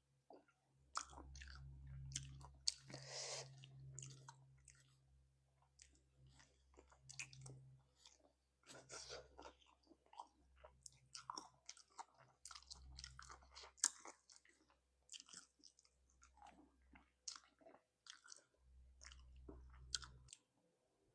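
Close-miked chewing and biting on spicy chicken feet: faint, irregular wet clicks and smacks with a few crunches.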